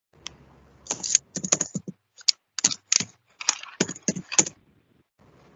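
Typing on a computer keyboard: an irregular run of key clicks in quick clusters with short pauses, for about four seconds.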